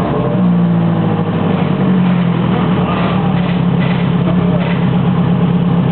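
Engine on a shop run stand running at a steady, held speed through its open exhaust, with an even drone.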